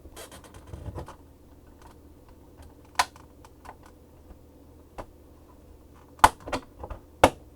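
Plastic case of an external hard drive enclosure being pried open: a scraping rasp in the first second, then sharp clicks and snaps as its clips let go, one about three seconds in and a quick cluster near the end.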